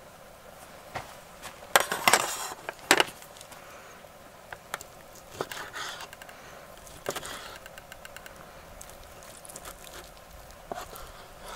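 Cookware and utensils clinking and knocking while food is handled: a cluster of sharp clatters about two to three seconds in, then scattered lighter taps.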